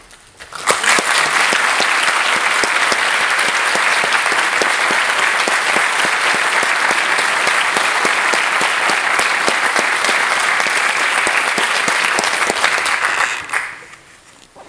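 Audience applause, many hands clapping together: it starts about a second in, holds steady, and dies away near the end.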